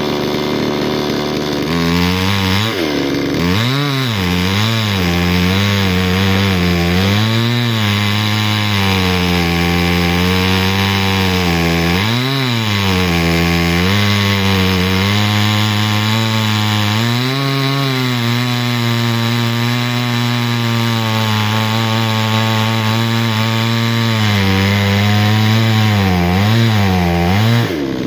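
Two-stroke chainsaw idling for about two seconds, then run at high throttle through wood. Its pitch dips again and again as the chain bogs in the cut and then picks back up, and it drops back near the end.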